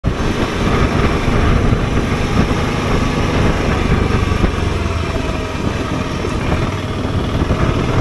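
Motorcycle running steadily at low road speed, its engine mixed with rushing wind noise on the microphone.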